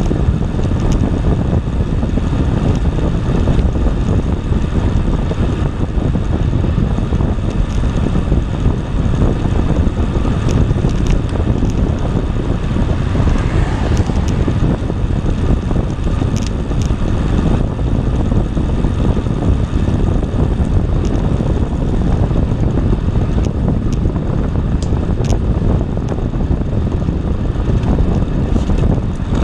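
Steady low wind rumble buffeting the microphone of a camera carried on a moving bicycle, with a few faint clicks.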